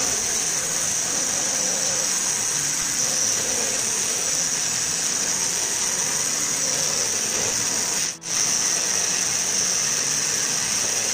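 Spindle motor of a small homemade CNC router running steadily as its engraving bit mills a plastic sheet: a steady high whine over a cutting hiss. The sound drops out for a moment about eight seconds in.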